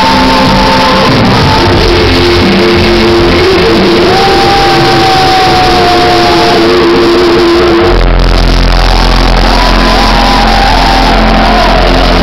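Loud recorded Spanish-language ballad over a sound system, with long held sung notes. Voices sing along and shout over it.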